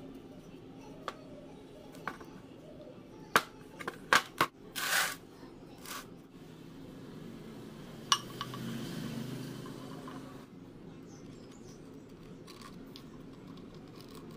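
Steel workpieces and tools being handled, giving a scatter of sharp metallic clicks and clinks, several in quick succession before the middle, followed by a low rumble lasting about two seconds.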